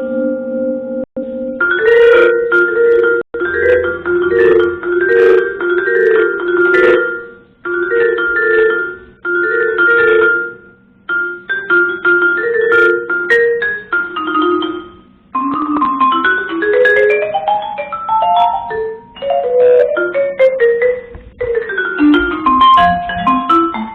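Music played on a pitched mallet-percussion instrument, with a short figure of notes repeated over and over, then quick runs of notes rising and falling from a little past the middle.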